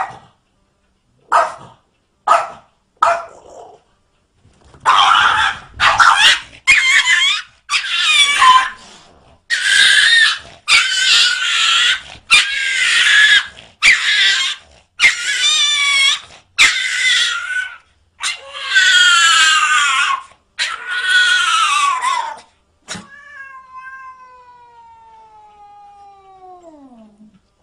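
A cat yowling over and over: a few short cries, then about a dozen long, loud, wavering yowls. Near the end comes a quieter, smooth tone that slides steadily down in pitch for several seconds.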